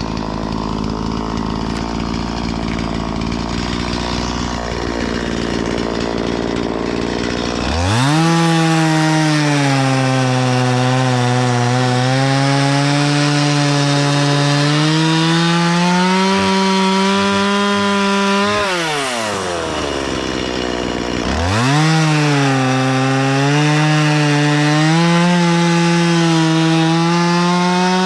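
Stihl chainsaw idling, then throttled up into a cut about a third of the way in. Its engine note wavers under load as it saws through willow wood. It drops back to idle for a few seconds and then revs up into the cut again.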